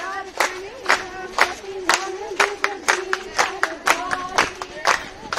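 A group of women clapping in time, about two claps a second, while singing Punjabi boliyan for a gidha dance, voices held on long notes.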